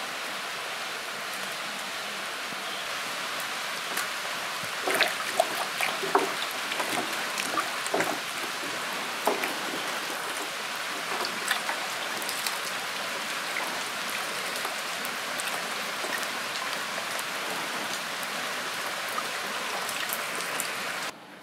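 Steady rain falling, with splashes and light knocks from about four to thirteen seconds in, as lemongrass stalks and leaves are swished through a basin of water by hand.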